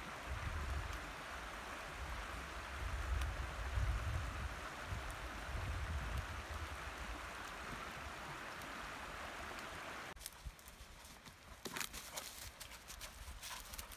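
Creek water rushing steadily, with a low rumble underneath in the first half. About ten seconds in the sound cuts to quieter woods, where dogs' paws crunch and rustle through dry fallen leaves in quick sharp crackles.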